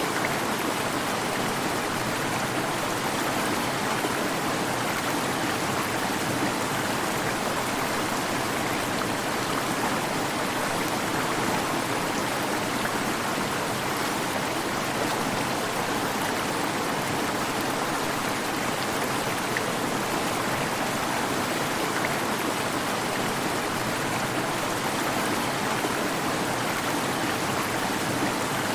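Waterfall: a steady, even rush of falling water with no breaks or changes.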